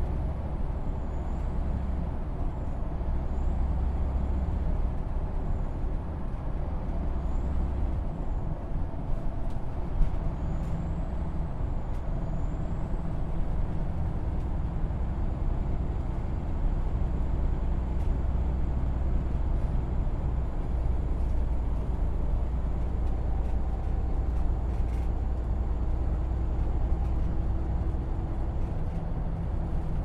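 Bus on the move: a steady low engine rumble with road noise, its lowest drone easing off for a few seconds near the middle. A single sharp knock comes about ten seconds in.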